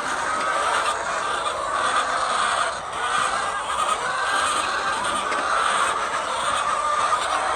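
A large flock of laying hens clucking and chattering all at once in a steady, unbroken din.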